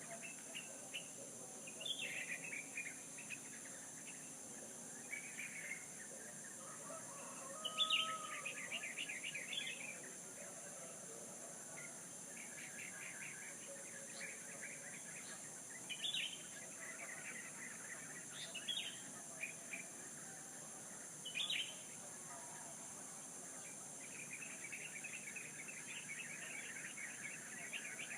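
Songbirds chirping and trilling in short bursts, the loudest about eight seconds in, over a steady high-pitched hiss.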